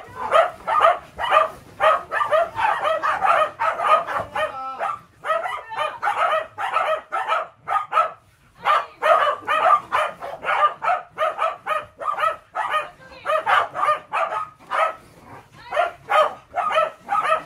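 Welsh corgis barking rapidly and repeatedly, about three to four barks a second, with a short lull about eight seconds in.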